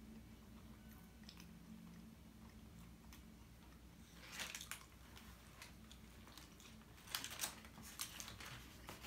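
Faint, close-up chewing and biting into a soft torta sandwich, with short crackly bursts about four seconds in and again around seven to eight seconds.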